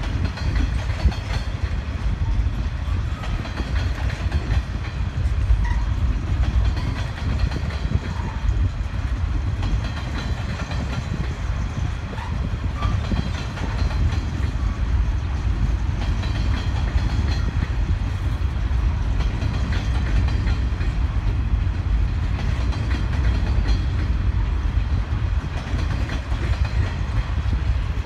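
Grain hopper wagons of a freight train rolling past on the track: a steady, low rumble of steel wheels on rail with some clickety-clack.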